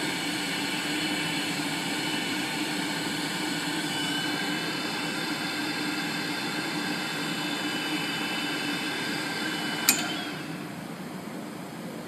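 Armstrong GFH 150 gas-fired humidifier's burner and blower running steadily, with a high whistle joining about four seconds in. Near the end comes a sharp click and the running noise drops away: the burner going out because the gas valve's mixture screw has been turned until the gas-air mixture is wrong.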